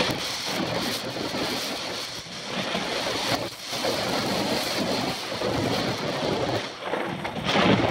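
Wind rushing and buffeting over a helmet camera's microphone, mixed with the rumble and rattle of a downhill mountain bike running fast over a grassy, bumpy track. The noise rises and falls, with a few short lulls.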